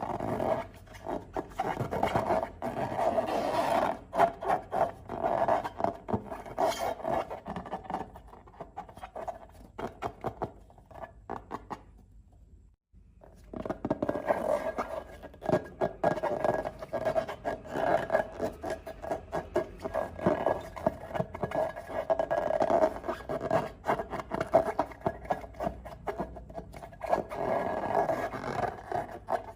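Long rubber balloons and slime being handled: continuous rubbing and squeaking with crackly clicks. It stops briefly about halfway through, then goes on.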